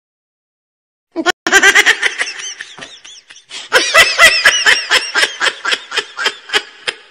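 Loud, high-pitched laughter in quick repeated ha-ha bursts, starting about a second in and running in a fast steady rhythm for the last few seconds.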